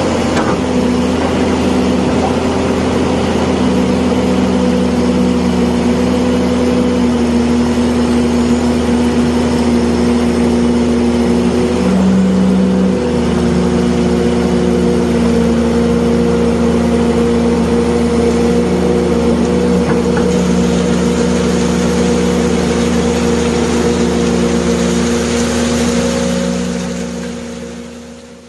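Excavator's engine running steadily under working load, with a brief change in tone about twelve seconds in, then fading out near the end.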